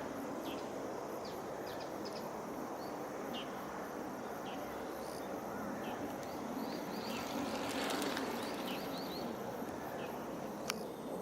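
Outdoor rural ambience: a steady rushing noise with scattered short, high chirps, which come in a quick run a little past the middle. There is one sharp click near the end.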